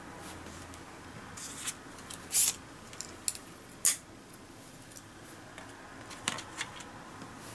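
Wooden disposable chopsticks being handled and set down on a plastic bento tray: a few brief rustles and sharp clicks, the loudest about two and a half and four seconds in, and two light clicks near the end.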